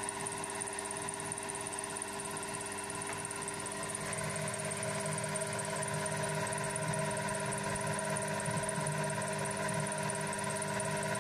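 Milling machine's spindle and motor running at a steady speed: a constant hum with several fixed tones and a faint high whine.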